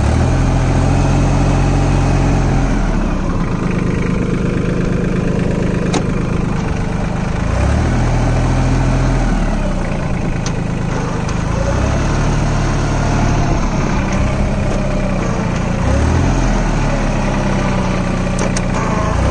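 Sonalika Tiger 26 HP mini tractor's diesel engine running as the tractor creeps along in first gear of the low range. The engine note shifts in pitch several times.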